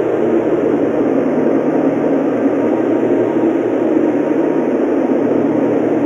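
Strong snowstorm wind blowing steadily through a forest, a loud deep rushing noise with no gusts or breaks. Soft ambient music hums faintly underneath.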